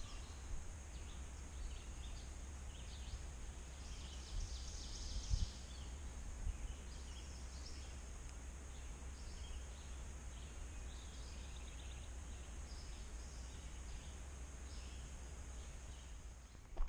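Forest birds chirping, with short high calls scattered throughout and most frequent in the first half, over a low steady rumble.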